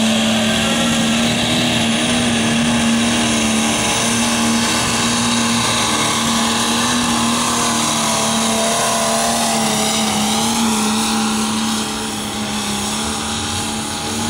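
Pulling tractor's diesel engine running flat out as it drags a weight-transfer sled down the track, a loud steady drone with a high whine over it. It eases off near the end as the pull comes to a stop.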